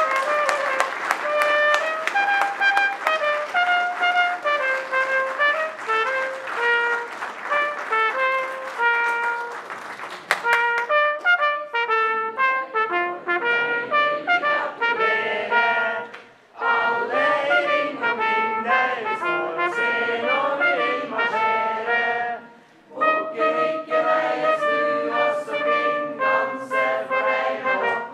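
Brass music with a trumpet carrying the melody, under crowd clapping for about the first ten seconds. After the clapping stops the brass plays on alone, with two brief pauses.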